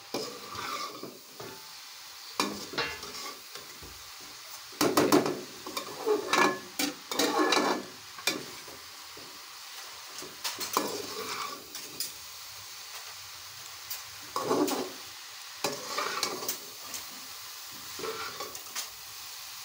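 Metal ladle scraping and knocking against an aluminium pan while chicken and vegetables are stir-fried, over a steady sizzle. The strokes come in irregular spells, loudest between about five and eight seconds in.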